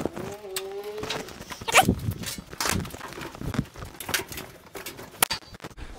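Footsteps on concrete and scattered knocks and clatter as hands handle the sheet-metal cabinet of a top-loading washing machine.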